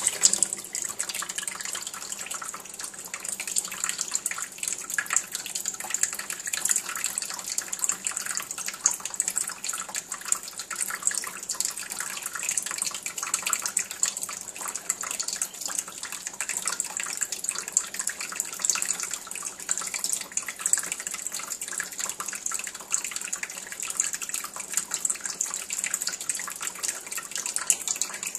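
Kitchen faucet turned on and left running, a thin stream splattering steadily into a stainless steel sink of dishes.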